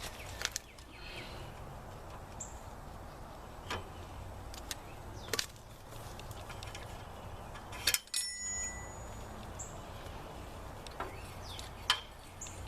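Scattered metal clinks and knocks as three-point hitch parts and tools are handled on a Kubota L2501 tractor, with the loudest clink about eight seconds in, ringing briefly.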